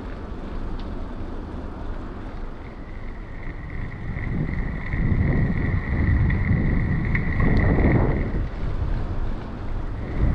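Wind buffeting the microphone during a bicycle ride, a low rumble that grows stronger midway and eases off near the end. A steady high-pitched tone sounds for several seconds over it.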